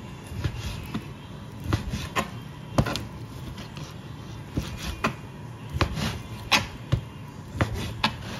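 Kitchen knife cutting raw chicken fillet into pieces on a plastic cutting board, the blade knocking on the board at an uneven pace, about one cut a second.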